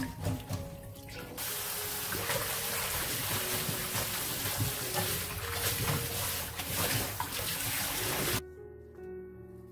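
Water splashing as wild chives are swished by hand in a stainless steel bowl, then a kitchen tap running hard onto the chives and into the bowl for about seven seconds. The running water cuts off suddenly about eight seconds in, leaving only soft background music, which plays throughout.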